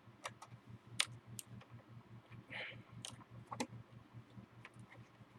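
Irregular light plastic clicks and a brief scrape from handling a keyboard and pressing its USB cable into the cable-routing channel under the case, one click louder about a second in, over a faint low hum.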